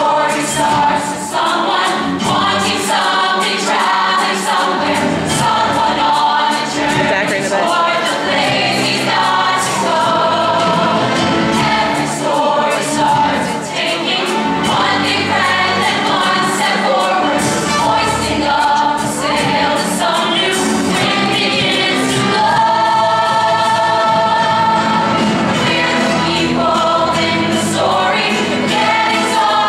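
A large stage ensemble of male and female singers singing a show tune together as a chorus.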